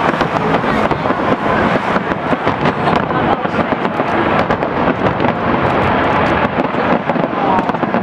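Aerial fireworks display: a dense, unbroken barrage of bangs and crackles from shells bursting in quick succession.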